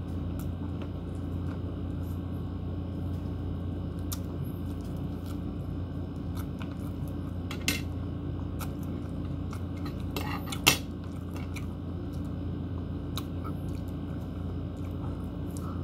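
Cutlery clinking against a ceramic plate during a meal: scattered light clicks, with two sharper clinks, one about halfway through and the loudest about two-thirds through, over a steady low hum.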